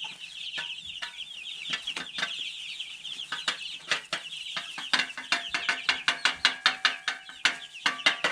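A brood of chicks peeping constantly in high, rapid chirps. Over them come sharp knocks and taps that quicken to about three a second in the second half, as ice is knocked out of their frozen water bottle.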